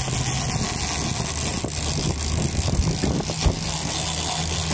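Sportfishing boat's engine running steadily under way, with water rushing and splashing along the hull.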